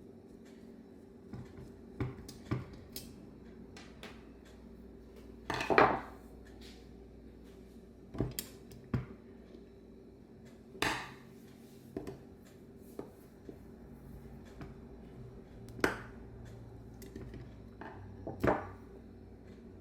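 Intermittent metallic clinks and knocks of hand tools and carburetor parts being handled while a Bendix Stromberg WWC carburetor is taken apart: about ten separate strikes, the loudest about six seconds in. A steady low hum runs underneath.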